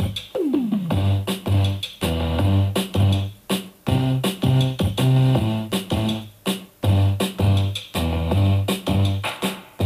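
Music with a repeating bass note and keyboard chords, played through a JBL Creature 2.1 computer speaker set whose satellites now carry off-the-shelf replacement drivers. It is a listening test of the repaired set.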